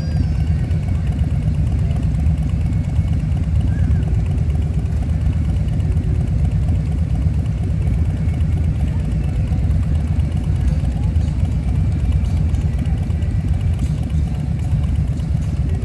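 An engine running steadily: a deep, even rumble that holds at the same level throughout.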